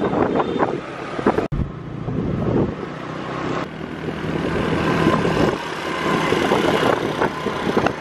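Busy street traffic heard from a moving motorbike: motorbike and car engines with wind buffeting the microphone. The sound drops out for an instant about a second and a half in.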